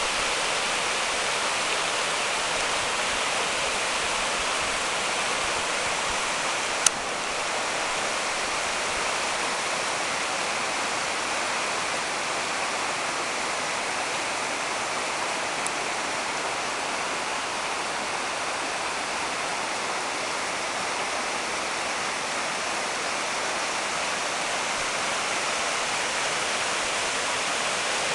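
Swollen creek in flood, its fast muddy water rushing steadily over the bank and into the flooded field. A single sharp click about seven seconds in.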